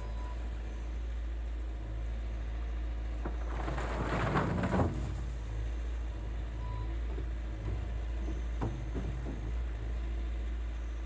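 Skid steer engine running steadily, with a rushing clatter lasting about a second around four seconds in and a few sharp knocks later. A brief high beep sounds near seven seconds.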